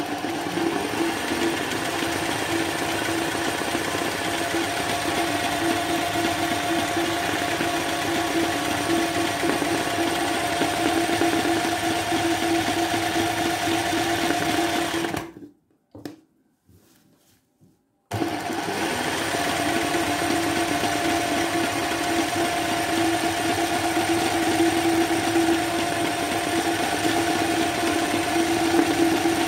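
Sewing machine running steadily as it stitches free-motion satin embroidery, filling the leaves of a floral design while the hooped fabric is moved by hand under the needle. It stops for about three seconds around the middle, then starts up again.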